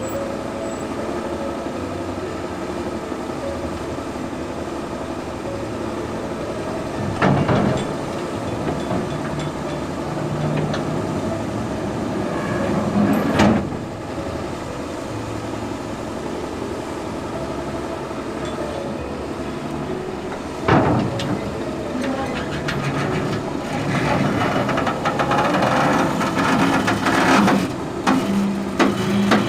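Heavy machine engine running, its pitch rising and falling, with a loud metallic clank about seven seconds in, another near the middle and a third about two-thirds through, then a stretch of clattering near the end.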